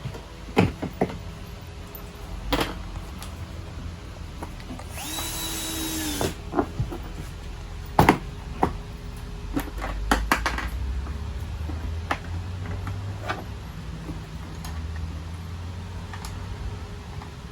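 A power drill or electric screwdriver running in short spells, with sharp clicks and knocks of parts being handled and fitted in between.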